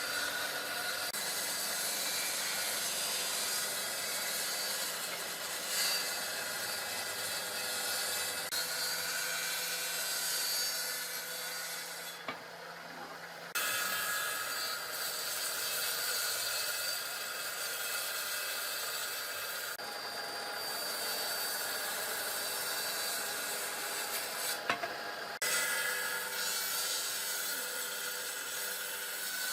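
Wood being cut or abraded by a running tool: a steady grinding, sawing sound. It breaks off and changes abruptly several times, about 12, 20 and 25 seconds in.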